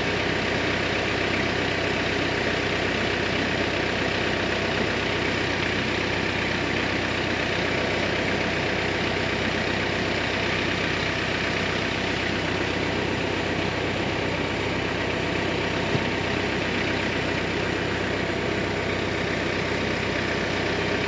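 Compact tractor engine idling steadily, with one light knock about three quarters of the way through.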